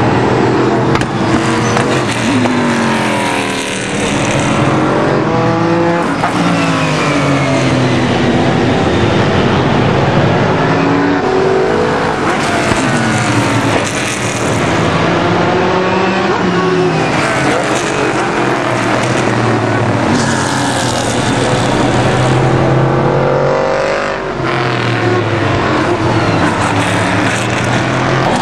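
Rolex Series sports-prototype and GT race cars passing one after another at racing speed. Their engines rise and fall in pitch continuously as the cars accelerate and brake.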